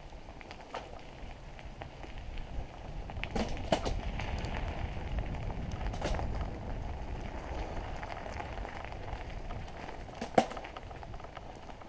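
Mountain bike tyres rolling over a dirt forest trail: a steady crackling with a low rumble that swells in the middle. Sharp clicks and knocks come from the bike as it goes over bumps, the loudest near the end.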